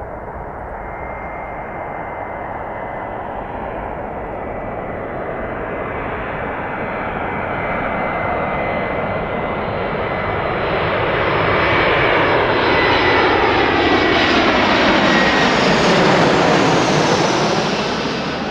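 Airbus A321 turbofan engines running with a steady jet roar and a thin high whine. The roar swells about halfway through as the airliner passes close by, then begins to fade near the end.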